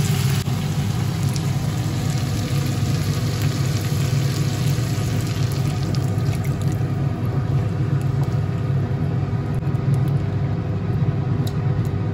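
Chicken curry hissing and sizzling in a hot pan as water is added, over a steady low hum; the sizzle eases off about seven seconds in.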